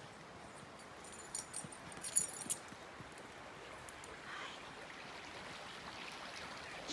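Dog's collar tags jingling in a few short bursts between about one and two and a half seconds in, over the faint steady rush of a creek. A soft spoken "hi" near the end.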